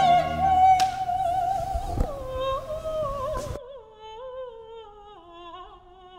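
Music: a slow sung melody with vibrato on long held notes, stepping down in pitch. About three and a half seconds in, the background drops away abruptly, leaving the voice alone and quieter.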